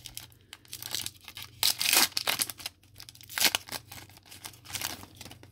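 Foil wrapper of a trading-card pack being pulled and torn open by hand, crinkling in several short bursts, loudest about two seconds in. The seam is stuck with extra glue, so it comes apart in stages.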